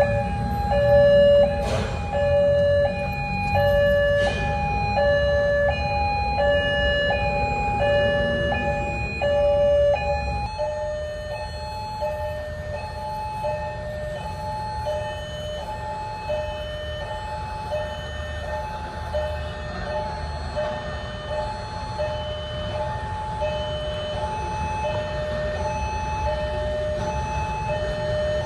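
Railway level-crossing warning alarm sounding an electronic two-tone signal, a high and a low tone alternating steadily about once a second, over a low road-traffic rumble. The alarm becomes fainter about ten seconds in.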